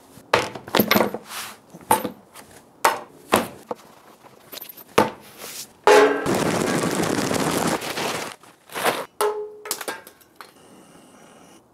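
Knocks and metal clanks from handling gear at a steel offset smoker, then a steady rushing rattle for about two seconds, six seconds in, and a short ringing clink soon after.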